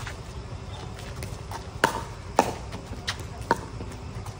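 Pickleball paddles striking a hard plastic pickleball during a rally: sharp hollow pops, several in quick succession from a little under two seconds in, each ringing briefly.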